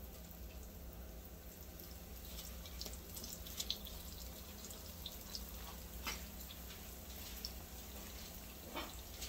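Tortilla wedges frying in a skillet of hot oil: a faint sizzle with scattered crackles and pops.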